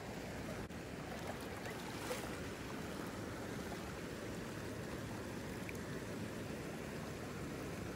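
River water rushing steadily over a low rock ledge and through a shallow riffle.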